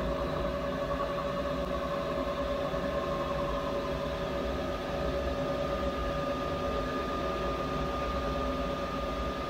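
A 1995 Bridgeport Torq-Cut 22 CNC mill's Z axis jogging the head up at the fast rate: a steady machine whine with two held tones over a low hum.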